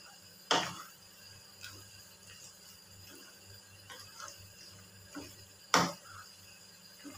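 Wooden spatula stirring and tossing macaroni in a frying pan, knocking sharply against the pan twice, about half a second in and near six seconds in, with lighter taps between.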